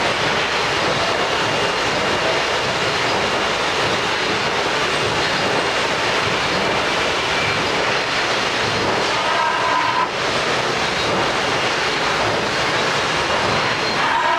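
Miyano BND 34S CNC lathe running, giving a steady, loud mechanical hiss. A brief whine sounds about nine seconds in.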